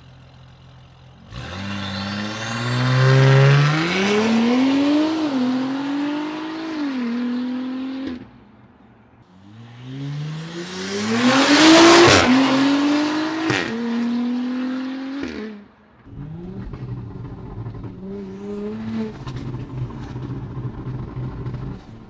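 Audi SQ5 3.0 TFSI turbocharged V6, breathing through a catless downpipe and a loud cat-back exhaust, under hard acceleration twice. Each time the engine note climbs and falls back at two quick upshifts, with a faint rising turbo whine above it. In the last few seconds the engine runs lower and steadier.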